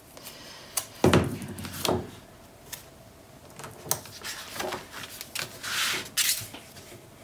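Sheets of cardstock being handled, shifted and rubbed on a cutting mat. There is a louder rustle about a second in, a few light taps, and a brushing hiss near the end.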